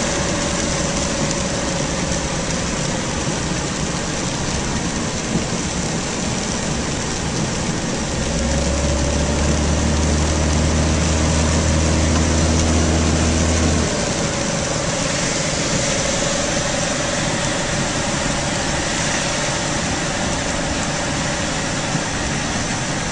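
Car driving in rain, heard from inside the cabin: a steady hiss of rain and wet road over the running engine. A deeper engine drone sets in about eight seconds in and drops away around fourteen seconds.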